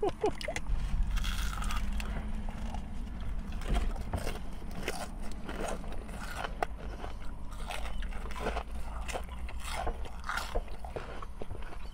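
Close-up eating of crispy fried onion rings: irregular crunching bites and chewing, heard as many small sharp clicks.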